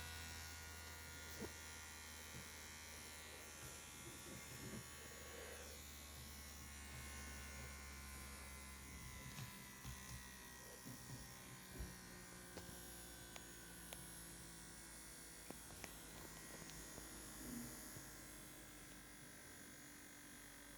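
Homemade electric tornado siren spinning down: a faint whine of several tones slowly falling in pitch, with the low motor hum dying away about halfway through and a few faint clicks.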